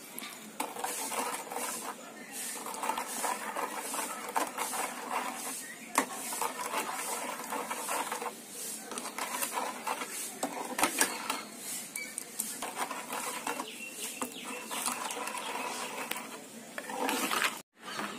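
Steel ladle scraping and clinking against an aluminium pan in a steady, uneven rhythm as a thick halwa mixture is stirred. The sound cuts out briefly near the end.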